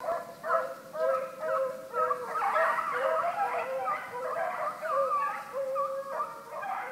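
A pack of hunting hounds baying together: many overlapping, wavering dog cries with no break.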